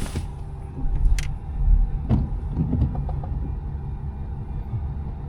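Pickup truck engine running low and steady as the truck creeps forward slowly so its four-wheel drive finishes engaging, with a sharp click about a second in.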